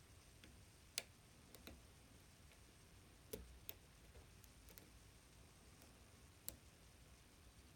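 Faint, irregular metallic clicks of a lock pick working the pin stacks of an Assa 600 oval cylinder with gin-bottle pins, about six or seven clicks with the sharpest about a second in.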